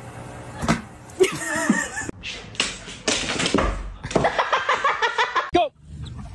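People laughing and giggling over a string of short clips, with a sharp smack just under a second in; the sound breaks off abruptly at the cuts between clips.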